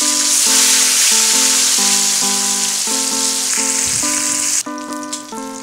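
Labahita fish steaks frying in hot oil in a pan, a loud, steady sizzle that drops off sharply about four and a half seconds in, over background music of slow held notes.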